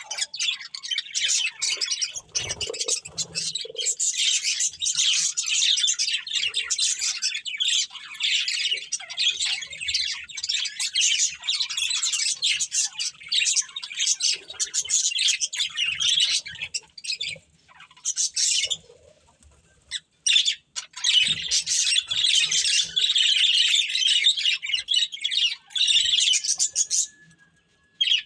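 A pair of budgerigars chattering and warbling in a continuous stream of rapid, high chirps and squawks. There is a brief pause about two-thirds of the way through and another near the end.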